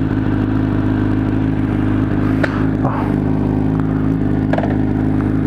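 Honda CBR600RR's inline-four engine idling steadily, with two short clicks about two seconds apart.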